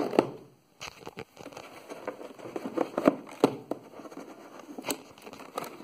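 Hands handling a crushed cardboard box: irregular taps, scrapes and crinkles of fingers working at its dented end flap.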